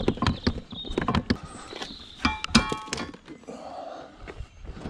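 Heavy scrap metal being handled, giving a run of knocks and clanks, with a brief rattling, ringing metallic squeal a little past halfway.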